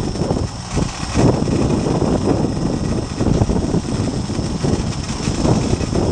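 Boat engine running under way, mixed with gusting wind on the microphone and the wake churning behind the stern: a loud, dense, uneven rush with no clear rhythm.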